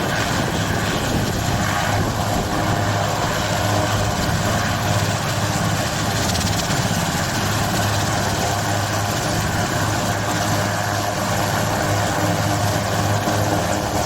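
Helicopter's engine and rotor running steadily, a constant low hum under an even rush of noise.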